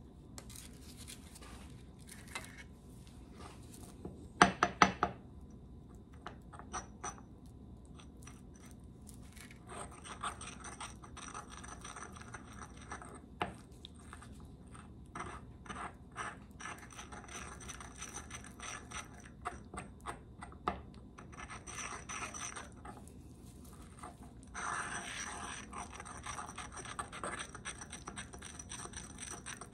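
Ceramic pestle scraping round a ceramic mortar in circular strokes, working powder into a cream, in intermittent spells that grow denser near the end. A quick run of sharp knocks comes about four to five seconds in.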